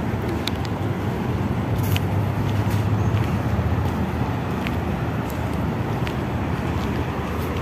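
Steady low rumble of road traffic, with a few light clicks scattered through it.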